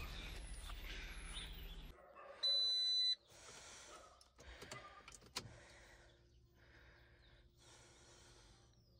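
A single steady electronic beep from the car, lasting under a second, about two and a half seconds in, over a faint low hum. A sharp click follows a few seconds later, then near silence.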